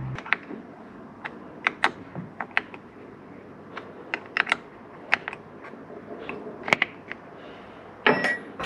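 Irregular light metallic clicks and taps of a hand tool working a battery terminal clamp as the lead is fitted back onto the battery post.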